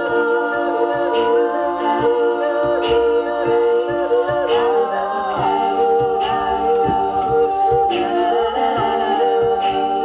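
Female a cappella group singing a sustained wordless chord, with a repeating short-note backing figure underneath. Sharp percussive hits, likely vocal percussion, keep a steady beat.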